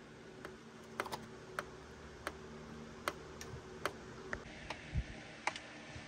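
Scattered light clicks and taps of the gloss-black plastic head-unit panel being handled, with one dull thump about five seconds in.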